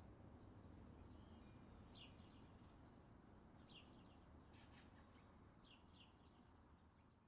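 Very faint outdoor ambience: a low steady hum with a few distant bird chirps scattered through, slowly fading.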